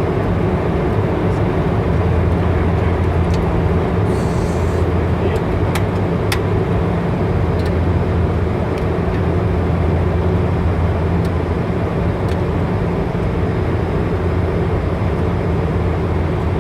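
Dash 8 Q400 turboprop cabin noise: the propellers and engines give a steady, loud low drone, with a few faint clicks or rattles from the cabin.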